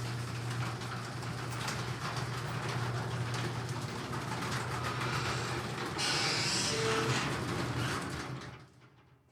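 A machine running with a steady low hum and continuous rattling and clicking, which winds down and stops shortly before the end.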